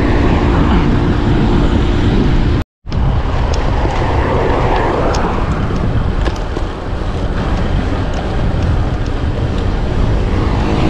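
Loud wind noise buffeting the microphone of a moving bicycle. The sound cuts out completely for an instant about two and a half seconds in.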